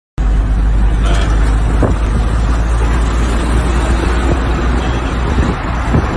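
Heavy trucks on the road: a loud, steady low rumble of engines and tyres as a container lorry passes close alongside, cutting in suddenly.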